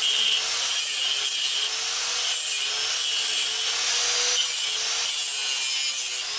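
Small cut-off wheel grinder cutting into a steel radius rod: a steady, loud high-pitched grinding with a motor tone that wavers slightly as the disc bites. It eases off briefly a few times, for example about a second and a half in and again about five seconds in.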